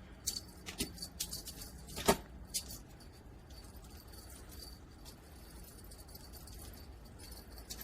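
Jingling of a cat fishing-rod teaser toy being shaken, in several short jangles over the first few seconds and then quieter.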